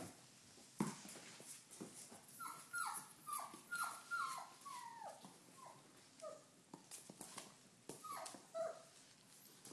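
Four-week-old Doberman pinscher puppy whimpering: a quick string of about nine short, high whines that each slide down in pitch, then two or three more near the end. A single knock comes about a second in.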